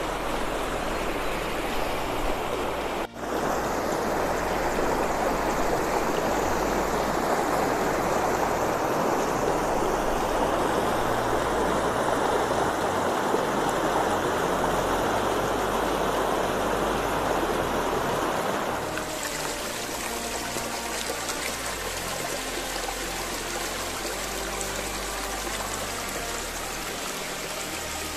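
Stream running over boulders and through shallow rapids, a steady rushing of water, swollen and muddy with rainy-season water. It breaks off briefly about three seconds in and turns quieter about two-thirds of the way through.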